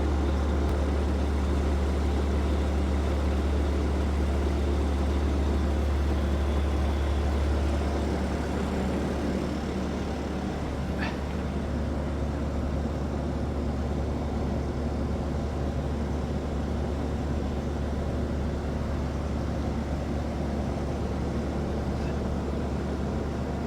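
Bobcat skid-steer loader's engine running steadily at a constant speed, a loud low drone that eases slightly about nine seconds in. A single sharp tick about eleven seconds in.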